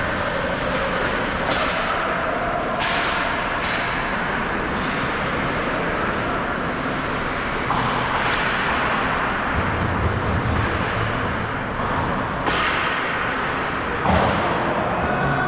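Ice hockey play: a steady hiss of rink noise and skates on the ice, with scattered sharp knocks of sticks and puck, the loudest one near the end.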